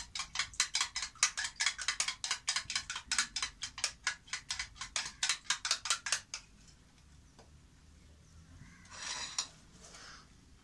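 An egg being beaten with a spoon in a small bowl: the spoon clicks rapidly against the bowl, about five strokes a second, and stops about six seconds in.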